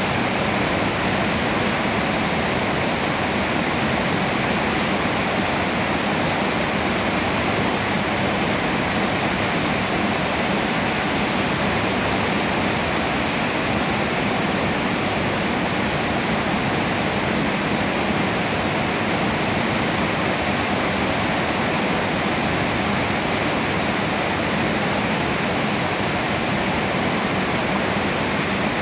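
Steady rain falling on leafy trees: an even, unbroken hiss.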